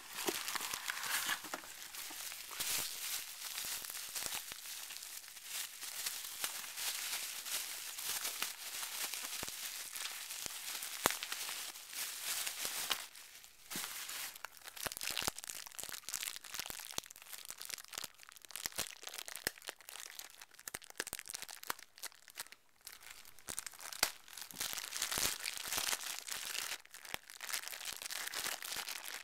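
Thin clear plastic packaging crinkling and crackling as it is handled and unwrapped from a puzzle, a long irregular run with a couple of brief lulls around the middle.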